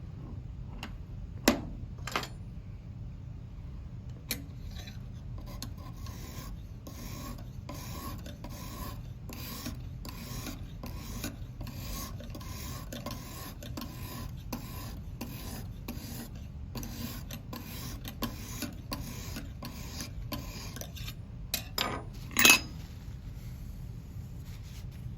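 Lansky guided sharpening hone being stroked along a clamped knife edge: a steady run of back-and-forth scraping strokes, about two a second. Sharp knocks come about a second and a half in and, loudest of all, near the end.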